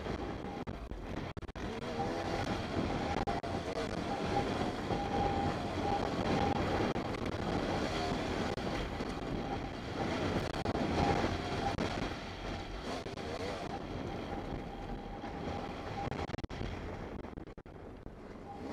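Yamaha YZ250 two-stroke dirt bike engine running and revving up and down on a trail ride, with wind rushing over the helmet-mounted microphone. It eases off a little near the end.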